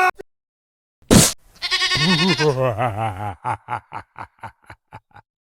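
A sudden sharp hit, then a wavering cry like an animal call that breaks into a run of short pulses, growing fainter until it stops.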